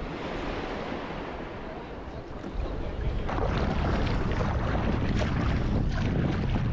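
Ocean water washing, with wind buffeting the microphone. The low rumble and overall loudness jump up about two and a half seconds in and stay up.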